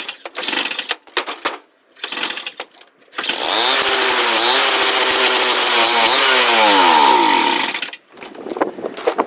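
Small snowblower engine running for about five seconds, starting about three seconds in, its pitch wavering and sagging, then cutting off abruptly near the end. Scattered clicks and knocks come before and after it.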